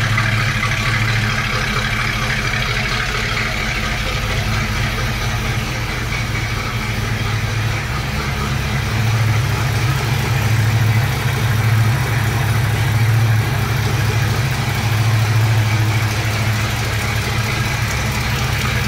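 1966 Ford Mustang's 289 four-barrel small-block V8 idling steadily, still warming up after a cold start.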